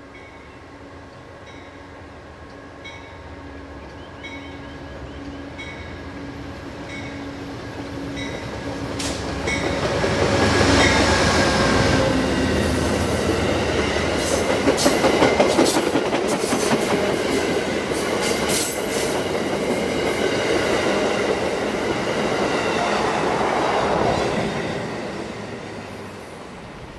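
Amtrak passenger train led by a GE P42 diesel locomotive approaching and passing at speed. It builds to a loud rush about ten seconds in as the locomotive goes by, then the passenger cars rumble past with rapid wheel clicks, and the sound fades as the train recedes near the end.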